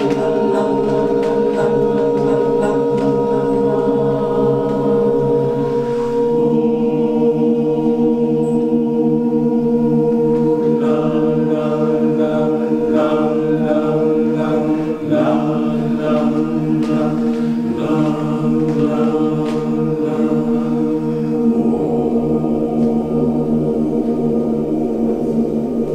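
Male choir singing a cappella in close harmony, slow and sustained, holding long chords that change only a few times. A fuller, deeper final chord comes in near the end.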